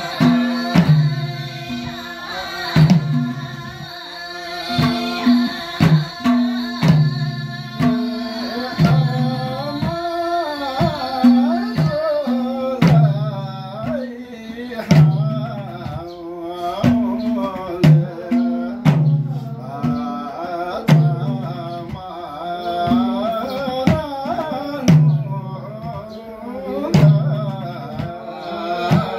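Men singing a Gurung (Tamu) ritual song of the pae (arghaun) death rite together, accompanied by several two-headed barrel hand drums. The drums keep a steady repeating pattern of deep strokes about once a second, with sharp slaps between.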